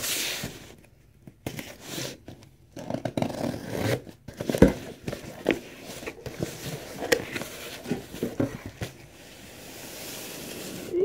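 Packing tape on a cardboard box being slit with a small blade and ripped open, with scattered scrapes and taps as the cardboard flaps are worked open. A steady rustle builds near the end as the plastic packaging inside is handled.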